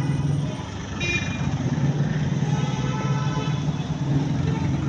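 Heavy road traffic: car and motorcycle engines running as vehicles pass, with horns sounding now and then.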